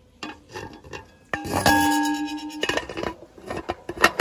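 Aluminium pot lid being fitted onto the pot, clinking and scraping metal on metal against the rim. Just over a second in, a ringing metallic tone holds for about a second and then cuts off. Sharp clinks follow near the end.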